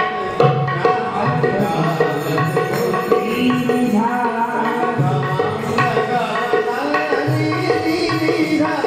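Devotional Indian music: a tabla plays a rhythm with deep bass strokes under a gliding melodic line.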